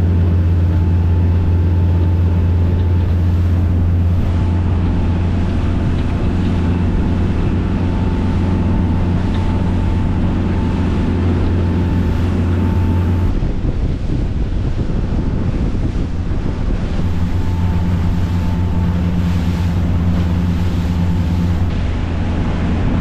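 Motor boat's engines running steadily under way, a low drone, with wind on the microphone and water noise. The engine drone falls away for a few seconds about halfway through, then comes back.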